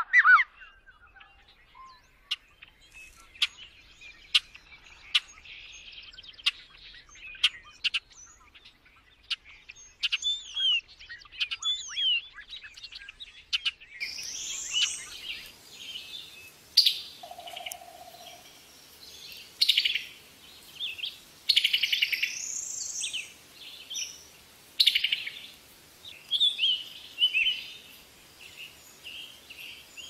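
Faint bird chirps and scattered clicks, then, from about halfway, a summer tanager singing short phrases repeated every one to two seconds.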